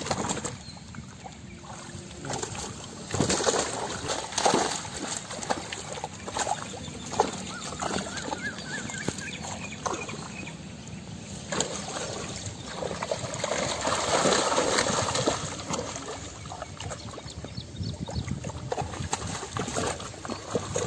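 Shallow muddy water splashing and sloshing in irregular bursts as a drag net is hauled through it and fish trapped in the net thrash at the surface, with heavier splashing around the middle.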